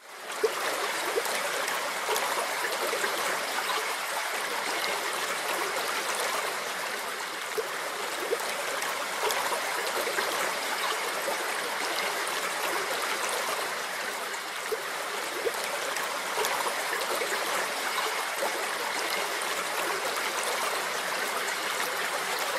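Running stream: a steady babble of flowing water that fades in over the first half second and holds at an even level.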